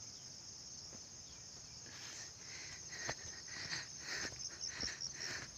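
A steady, high-pitched insect chorus. From about two seconds in, it is joined by soft footsteps on a muddy dirt trail, roughly two steps a second.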